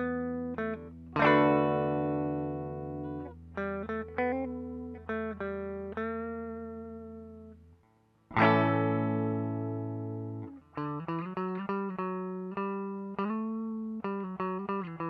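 Clean electric guitar played through an Old Blood Noise Endeavors Sunlight dynamic reverb pedal in tape mode, a vibrato applied to the reverb signal. Picked notes and two ringing chords, one about a second in and one just past the middle after a brief pause, then a run of quicker picked notes.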